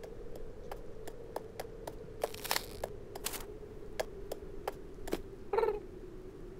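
Cartoon cat's paw steps: light clicks about three a second, over a faint steady hum. Two short hissing noises come in the middle, and a brief, louder sound follows near the end as the cat sits down.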